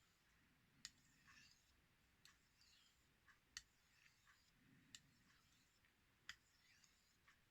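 Very faint knife polishing strokes on a 4000-grit Naniwa whetstone, with a sharp click about every second and a half.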